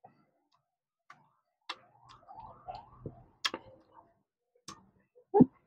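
Close-up eating sounds of a person chewing a hard raw green fruit: scattered small clicks and smacks with a short hum near the end.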